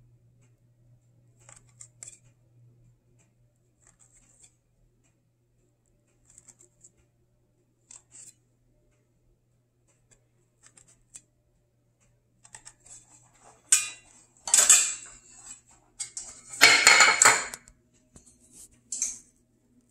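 A stainless steel bench scraper pressing down through pastry dough onto a silicone mat, making faint short clicks. Later come several much louder metal clatters and scrapes, the longest lasting about a second, as a metal muffin tin is handled and set on the stone counter.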